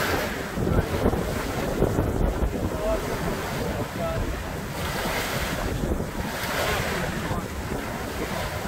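Bow wave and spray rushing and splashing along the hull of a sailing yacht driving through chop, with wind buffeting the microphone. The water noise swells in surges every second or two.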